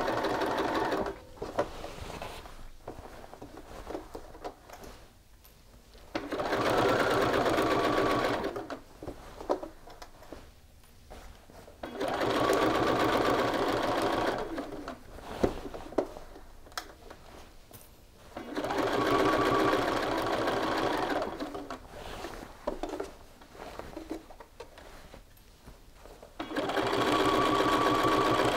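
Bernina sewing machine edge-stitching a shirt collar stand in short runs. It stops about a second in, then starts and stops four more times, each run lasting two to three seconds. Small clicks come in the pauses between runs.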